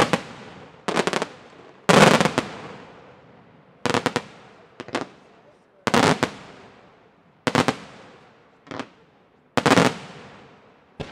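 Aerial firework shells bursting in a string of sharp bangs, about one every second, some coming as quick double or triple cracks, each trailing away in a fading rumble; the loudest comes about two seconds in.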